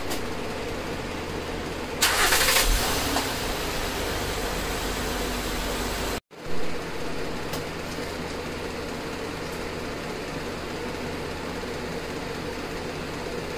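2009 Honda Odyssey's 3.5-litre V6 started up about two seconds in, a short loud crank and catch, then settling into a steady idle on freshly changed oil.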